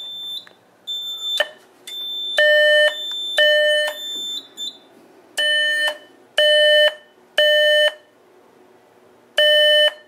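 Smoke detector's sounder base in alarm after a magnet test, sounding the temporal-three pattern: buzzy half-second tones, three about a second apart, then a pause. In the first few seconds, shorter higher-pitched beeps about once a second sound alongside.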